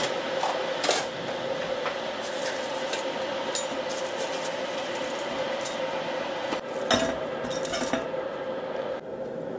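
Clinks and knocks in a stainless steel pot as green tea leaves and then pineapple peels are put into it, with the loudest knocks about seven seconds in. A steady hiss with a faint hum runs underneath.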